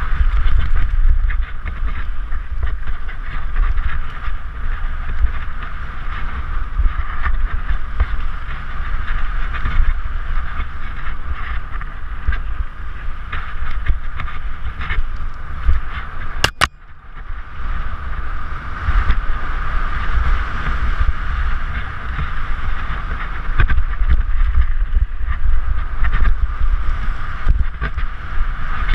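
Wind buffeting a helmet-mounted GoPro's microphone on a fast mountain-bike descent, over the rumble of tyres on a dirt trail and frequent knocks and rattles as the bike hits bumps. Just over halfway through the sound drops for a moment, with a single click.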